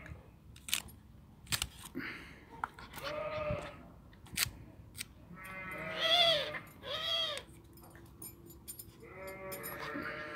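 A puppy howling in four short arched yowls, the pitch rising and falling in each, the loudest about six seconds in, with sharp clicks in between.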